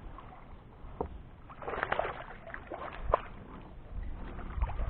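Water sloshing and splashing around a kayak, with a few short knocks on the hull, while a hooked bass is fought close to the boat.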